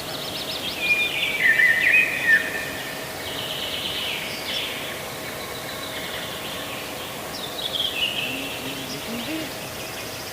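Birds chirping and trilling in several short bursts of high calls, with a faint steady hum underneath.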